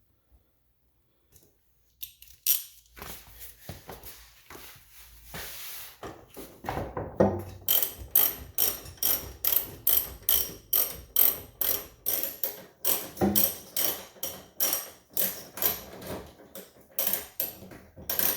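Socket ratchet tightening the tie bar's mounting bolt: after a few seconds of scattered metal handling clicks, a steady run of ratcheting strokes, about two a second.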